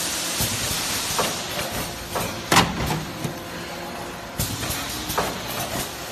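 Rotary plastic-cup sealing machine running: a steady hiss for about the first two seconds, then a series of sharp clunks and short blasts as the mould plate and sealing head cycle, the loudest about two and a half seconds in.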